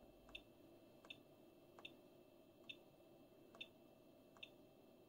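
Faint key beeps with a click from a Tonghui TH2830 LCR meter's front-panel key, pressed about once a second, six times in all, each press stepping the test frequency down.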